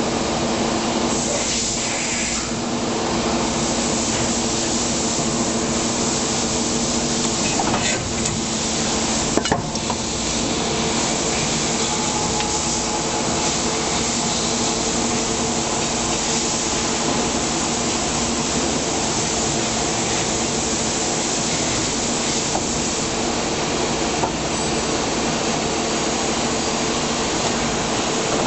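Hydraulic plastic injection molding machine running: a steady pump hum and hiss, with a couple of sharp knocks about eight and nine and a half seconds in.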